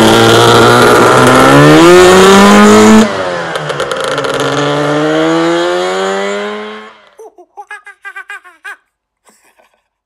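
Two-stroke scooter engine accelerating hard, its pitch rising, dropping sharply as it changes up a gear about three seconds in, then rising again before fading away. A quick run of short, high chirping notes follows near the end.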